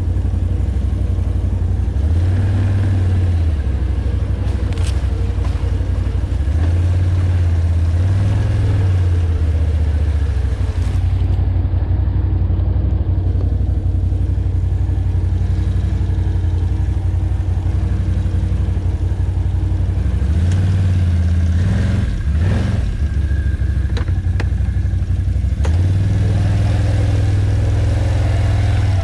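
ATV engine running as it rides along a trail, its pitch climbing and settling several times as the throttle opens and closes. There are a few sharp knocks about two-thirds of the way in.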